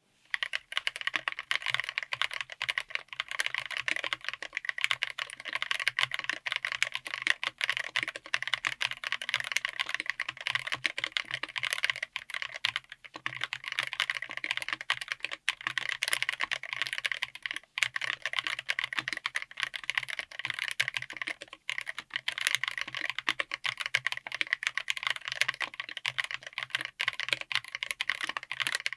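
Fast, continuous typing on a 60% mechanical keyboard fitted with Wuque Studio WS Quartz linear switches on an FR4 plate in an aluminium case, with a few brief pauses along the way.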